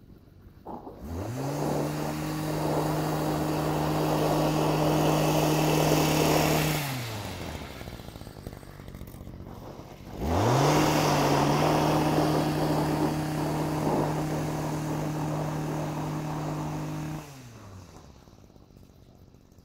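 STIHL MM-55 Yard Boss's two-stroke engine driving its power broom: it is throttled up to a steady high speed for about six seconds, dropped back, then throttled up and held again for about seven seconds before winding down near the end.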